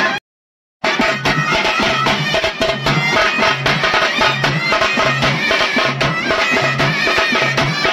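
Traditional South Indian folk music: a wavering wind-instrument melody over a steady drum beat of about two strokes a second. The music cuts out for about half a second near the start, then resumes.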